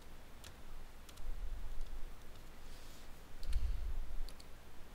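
A handful of sharp computer mouse clicks at irregular intervals, with dull low thumps underneath, the heaviest about three and a half seconds in.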